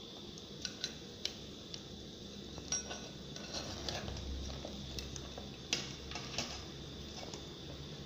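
Metal ladle and spatula clinking and scraping against a stainless steel cooking pot as boiled crabs are lifted out, with a scatter of sharp clanks, the loudest a little before six seconds in.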